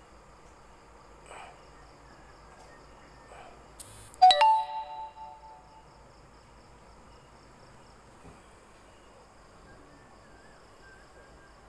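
A short scrape, then a single bright ding about four seconds in: a hard object struck once, ringing with several tones at once and dying away over about a second and a half.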